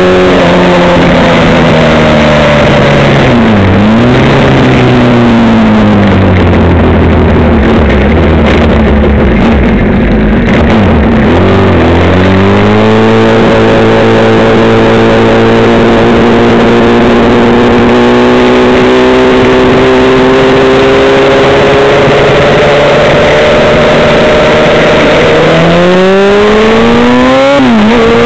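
Motorcycle engine heard from the rider's position, its pitch rising and falling with the throttle. It dips and climbs again a few seconds in and once more around ten seconds in, then holds a steady pitch for a long stretch before a quick dip and rise near the end. A steady rush of wind and road noise runs underneath.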